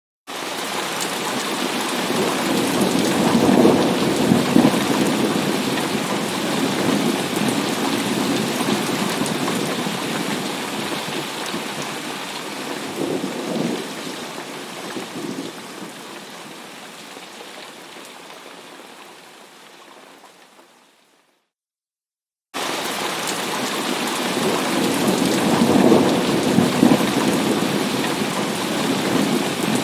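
Heavy rain pouring steadily, with thunder rolling and rumbling three times. The storm fades out to silence for about a second, then starts again abruptly at full strength.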